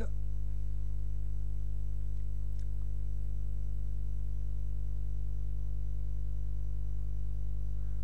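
Steady electrical mains hum, a low buzz with a stack of evenly spaced overtones, picked up by a recording microphone.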